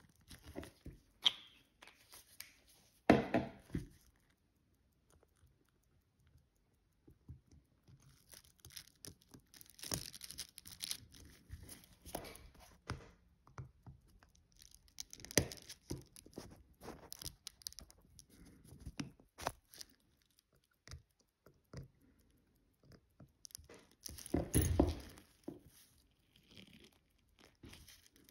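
Scattered small clicks, taps and rustles of tweezers and watch parts being handled on a bench while a watch movement is fitted into its case. The sounds come in short irregular bursts, with the loudest about 3 seconds in and about 25 seconds in.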